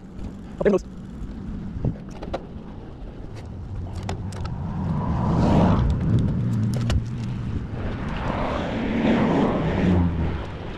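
Cars passing on the adjacent two-lane highway: two swells of tyre and engine noise, the first peaking about halfway through and the second near the end. A few sharp clicks are heard along the way.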